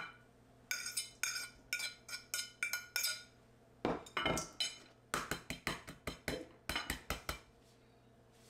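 A metal fork clinking and scraping against a plate in quick runs of taps, as food is mashed or chopped on it. The taps stop about seven and a half seconds in.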